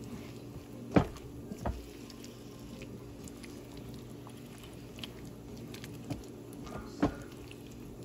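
A silicone spatula stirs beef cubes and vegetables in a pan, making soft wet squishing, with a few sharp knocks against the pan: the loudest about a second in, another just after it, and one near seven seconds. A steady low hum runs underneath.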